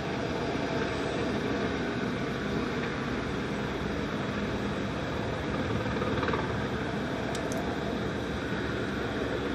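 Steady mechanical whir and rush from rooftop ventilation fans mixed with helicopters running on the field below.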